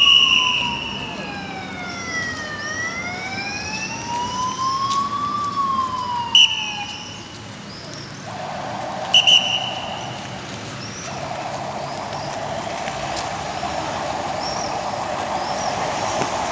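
Police siren in slow wail mode, sweeping down, up and down again in pitch, then fading out about seven seconds in. Two short, sharp high blasts are heard, then the sound of approaching vehicles builds steadily, with faint bird chirps.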